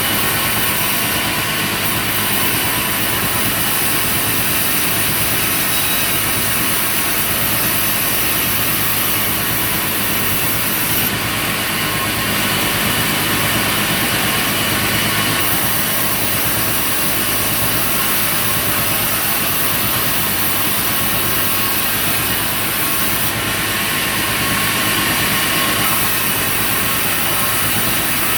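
Sawmill machinery running steadily, a constant engine-like drone under a high hiss that strengthens and eases several times.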